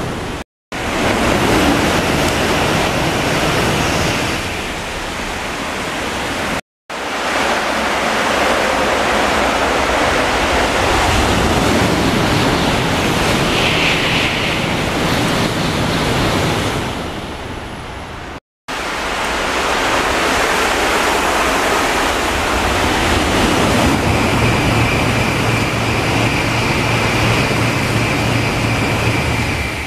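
Shinkansen bullet trains passing through a station at full speed: a loud, steady rushing noise of air and wheels, in several passes cut together. A steady high tone joins it in the last few seconds.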